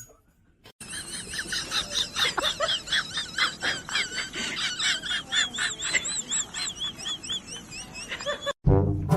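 Rapid, high-pitched chirping and squeaking from small animals: many short calls overlapping, with a run of quick rising-and-falling peeps later on. It starts about a second in and cuts off just before the end.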